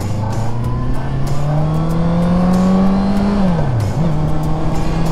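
Motorcycle engine under way. Its pitch climbs steadily as it accelerates, then drops sharply about three and a half seconds in and comes straight back up to a steady note, over wind noise.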